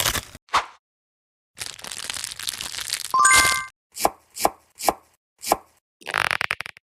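Knife chopping on a cutting board: four sharp separate chops about half a second apart, with a brief ringing chime just before them and short clattering noise around them.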